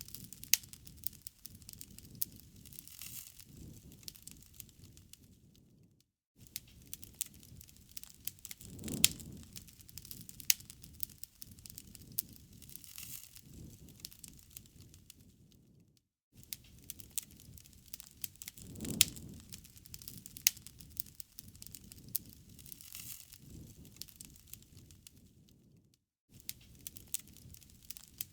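Wood fire burning, crackling with many sharp pops over a soft low rush of flame. The sound drops out for an instant about every ten seconds and the same stretch of crackling starts over.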